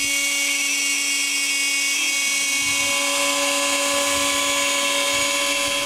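Inventables X-Carve CNC spindle cutting MDF with a 1/8-inch two-flute downcut spiral bit, a steady high whine.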